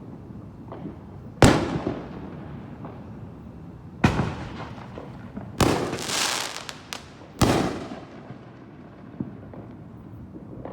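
Fireworks going off: four loud bangs within about six seconds, the third followed by a short burst of crackling, with smaller pops and a low rumble of distant bursts in between.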